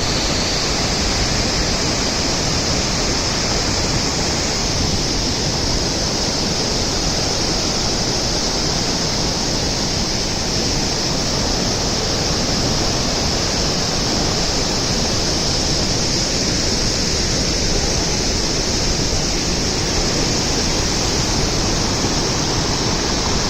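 Waterfall crashing: a loud, steady rush of falling water.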